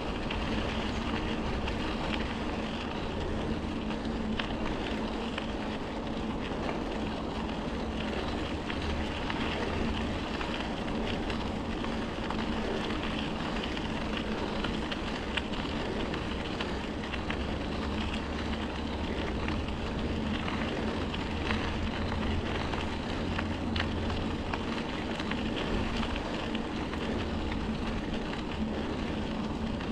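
Riding noise on a trail: wind rushing over the microphone and tyre rumble, a steady rush with a constant low hum underneath.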